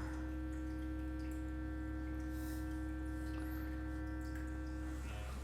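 Electric handheld massage device running with a steady, low-pitched buzzing hum. One tone in it drops out about five seconds in while the rest of the hum carries on.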